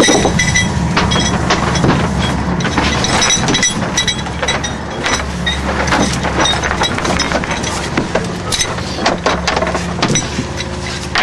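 Steady low drone of a work boat's engine, with frequent irregular clinks and knocks on top.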